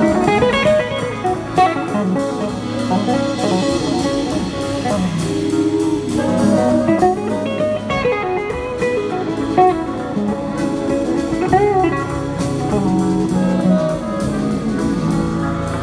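Live blues-rock band playing, with an electric guitar taking the lead in gliding, bending notes over drum kit and bass.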